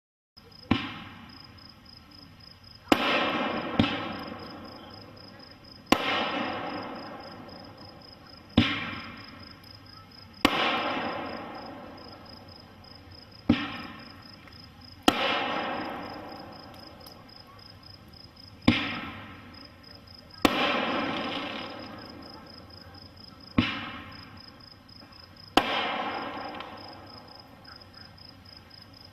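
Black Cat Display Shells, reloadable aerial fireworks shells, firing and bursting: about a dozen sharp bangs a few seconds apart, each trailing off over a couple of seconds. A steady high insect trill runs underneath.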